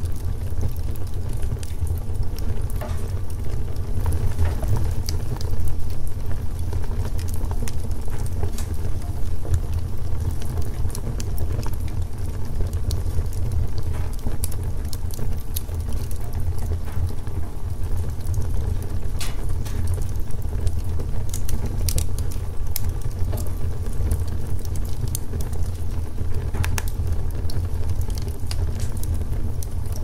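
Wood log fire burning: a steady low rumble of the flames, with irregular crackles and pops from the logs scattered throughout.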